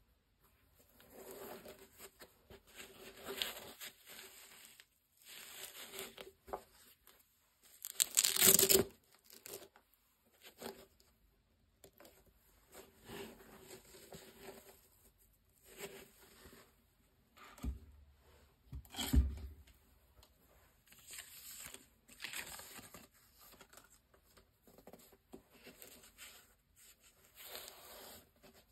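Gloved hands handling an Adidas Forum Low sneaker: irregular rustling and scraping of glove on leather and suede as the shoe is turned and its padded collar pressed. There is a louder rustle about eight seconds in and two soft thumps later on.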